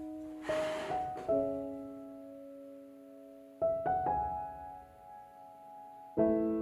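Background piano music: chords struck a few times and left to ring and fade between them.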